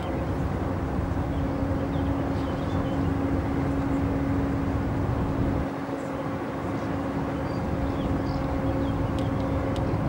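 Diesel engine of an inland motor tanker ship running with a steady hum, under wind rumbling on the microphone. Faint bird chirps are heard now and then.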